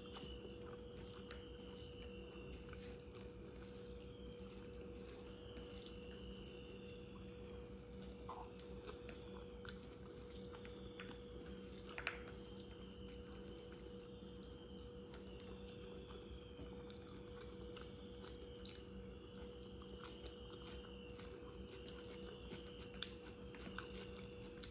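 Faint sounds of eating by hand: fingers mixing rice with curry on the plate and chewing, with small scattered clicks and one sharper click about halfway, over a steady hum.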